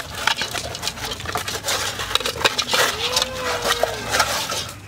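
Hands rubbing marinade into a raw whole chicken in a metal cooking pot: wet squelches of the meat and many quick clicks and scrapes of a metal spoon against the pot and sauce bowl. About three seconds in, a drawn-out call that rises then falls sounds in the background.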